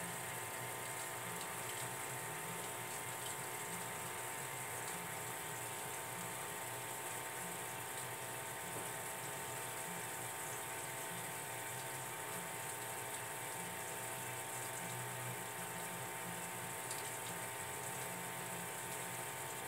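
Aquarium water circulating and bubbling steadily, with fine bubbles streaming up through the tank, over a steady hum.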